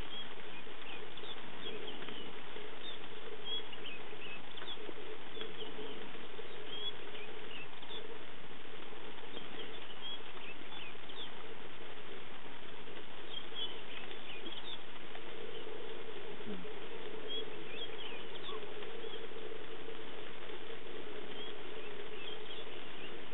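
Light rain pattering steadily, with short high chirps scattered throughout and a steady low hum underneath.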